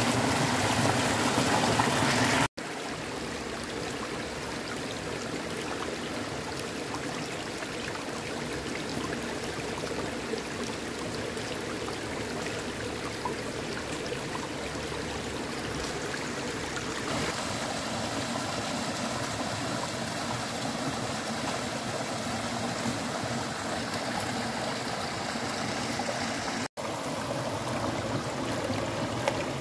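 Shallow forest stream running over rocks and bamboo tubes, a steady rush of water. It drops in level about two and a half seconds in, and breaks off for an instant twice.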